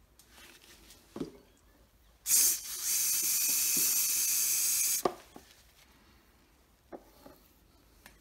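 Aerosol spray hissing steadily for about three seconds, starting about two seconds in. A few light knocks come before and after it.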